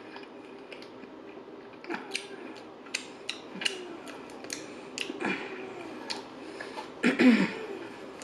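Close-miked eating: chewing with frequent wet mouth clicks and smacks, and a loud wheezy, pitched breath about seven seconds in.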